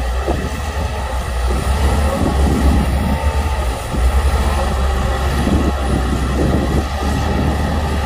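Shantui crawler bulldozer's diesel engine running under load as it pushes soil with its blade: a steady, deep rumble that eases briefly just before halfway, then picks up again.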